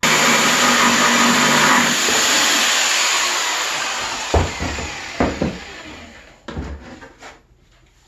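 Saber saw (jigsaw) cutting a hole in the wall of a bucket: the motor starts abruptly and runs loud for about two seconds, then gradually dies away, with three sharp knocks in the second half.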